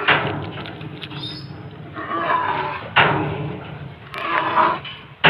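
Baby sun bear giving rough, bleat-like calls while it eats, with two sharp knocks: one about three seconds in and one at the very end.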